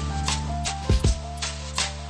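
Background music: a melody of held notes over a steady drum beat.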